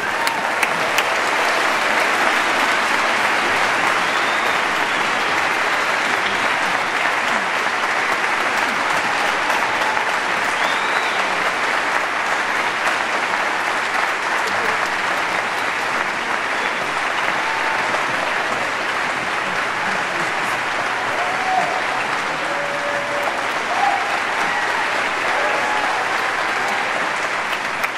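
Large concert audience applauding steadily throughout a curtain call, with scattered cheers and whistles.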